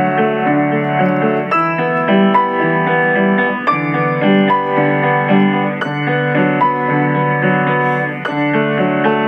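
Instrumental music played on piano or electric piano, a steady flow of chords and melody notes.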